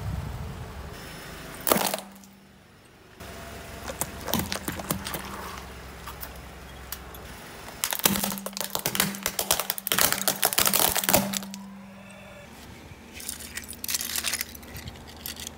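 A car tyre rolling over and crushing brittle hollow candy-shaped objects on concrete: sharp cracks, then a dense run of crackling and breaking, over the car's steady low hum. Near the end, loose shards crunch and click as they are pressed by hand.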